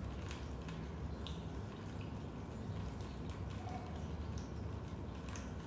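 Raindrops dripping into a basement: irregular drips and a few short, pitched plinks over a steady low rumble.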